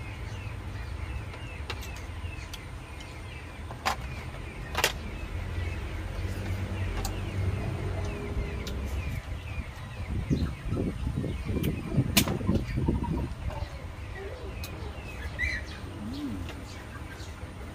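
Small birds chirping over and over in the background, with a few sharp clicks of metal cutlery against oyster shells and plates, one near 4 s, one near 5 s and the loudest about 12 s in.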